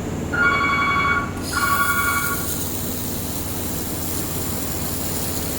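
Two long electronic beeps, one right after the other, from the air-cooled handheld laser welding machine, over its steady machine hum. A high hiss starts just after the first beep and keeps going.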